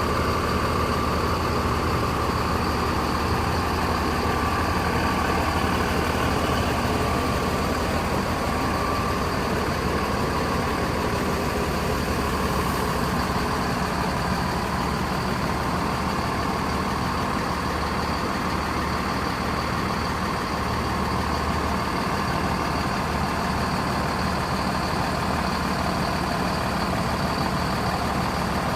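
Coach bus's diesel engine idling steadily while it is warmed up.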